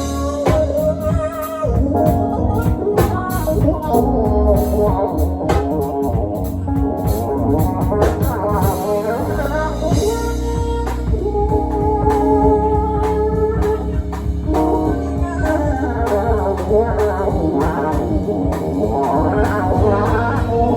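Band playing a jazz-funk number: electric guitar lines over organ-style keys, with drums keeping a steady beat.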